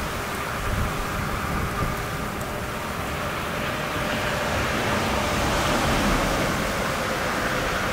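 Steady hiss of freezing rain falling during an ice storm, with a faint steady hum underneath.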